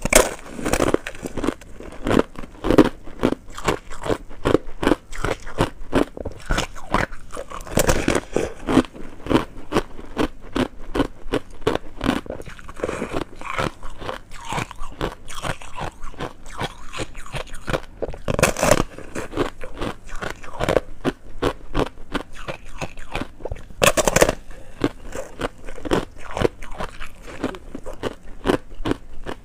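Close-up crunching and chewing of a frozen foam-ice block: frosty ice with thin hard ice crusts cracking between the teeth in a rapid, continuous stream of crisp crunches. A few bites are louder, about 8, 18 and 24 seconds in.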